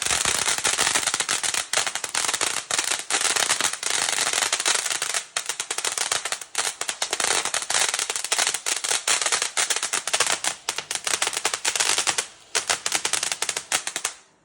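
Ground firework fountain (Flower Power Fountain G 601) burning: a loud spray hiss packed with rapid crackling pops, with short dips, cutting off suddenly just before the end as it burns out.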